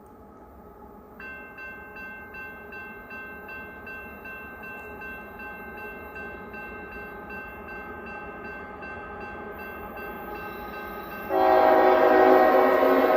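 A CSX GE locomotive's Nathan K5HL five-chime train horn blowing as the train approaches. It grows steadily louder, then gets much louder about eleven seconds in as the locomotive comes close, with the rumble of the passing train. A grade-crossing bell dings steadily, about two and a half times a second, from about a second in.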